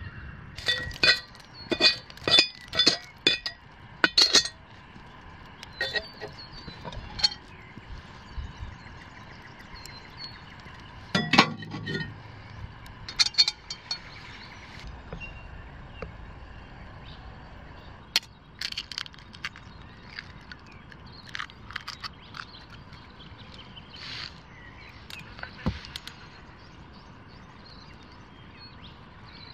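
Hard objects clinking: a quick run of about eight ringing clinks in the first few seconds, a heavier clunk about eleven seconds in, then scattered lighter clinks and taps.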